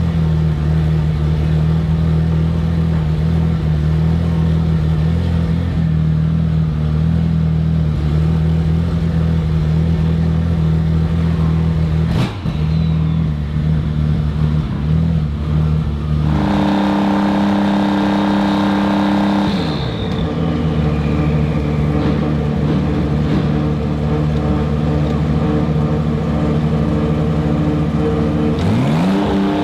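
BMW M4 GT3's twin-turbo straight-six engine running at steady revs, with a single sharp click about 12 seconds in. About 16 seconds in the engine note jumps higher and holds, dips briefly about four seconds later, and rises again near the end.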